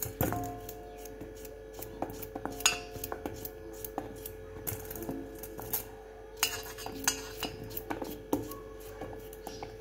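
A knife cutting pieces of pumpkin held in the hand, the pieces dropping into a stainless steel bowl: irregular clicks and knocks, some followed by a brief ring from the bowl. A steady hum runs underneath.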